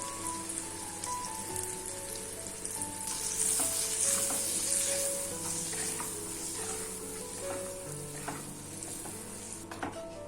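Food sizzling as it fries in a pan, loudest about three to five seconds in, with a few short clicks of stirring against the pan. Background music with short melodic notes plays along.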